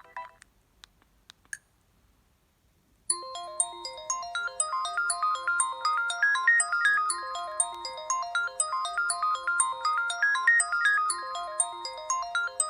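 Preloaded polyphonic ringtone on an Alcatel OT-660 flip phone, starting about three seconds in after a few faint clicks and a short pause, playing a fast melody of short, bright notes over a lower part.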